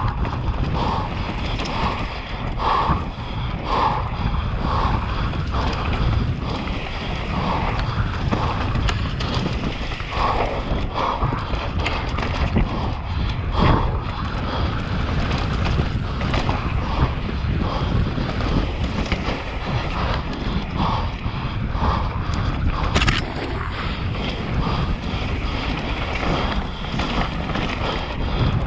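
Mountain bike descending a dirt and rock trail: wind buffeting the microphone and a constant low rumble from the tyres, with short rattles and knocks from the bike over bumps and one sharp click near the end.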